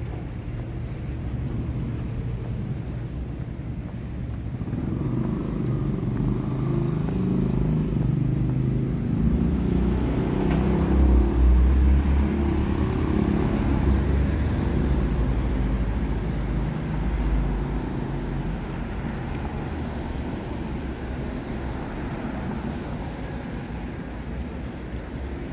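Street traffic, with a delivery box truck's engine passing close by: its rumble builds from about five seconds in, is loudest around the middle, then fades back into the general traffic noise.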